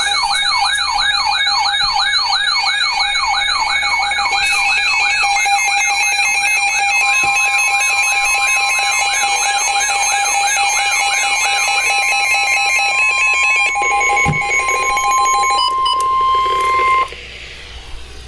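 Layered electronic alarm tones for a weather emergency alert: a fast warbling siren over steady and pulsing beeping tones, joined about seven seconds in by a long steady single tone. All of them cut off abruptly about seventeen seconds in.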